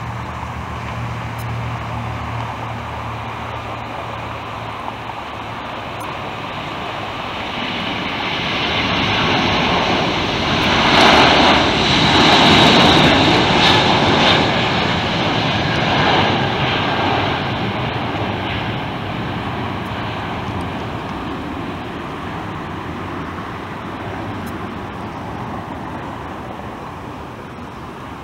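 Airbus A380's four jet engines at takeoff power as the airliner lifts off and climbs out: a steady jet noise that builds to its loudest about halfway through, then slowly fades as the plane climbs away.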